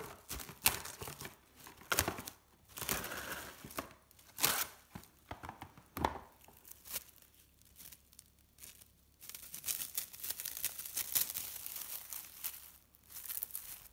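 Plastic cling wrap crinkling and crackling as it is stretched, wrinkled and pressed onto wet watercolor paper, in irregular bursts with a quieter spell a little past halfway.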